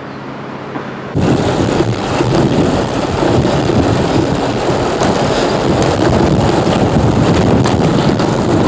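City street traffic: a steady rush of passing cars with wind on the microphone, heard while moving along the road. It cuts in abruptly about a second in, after a quieter stretch.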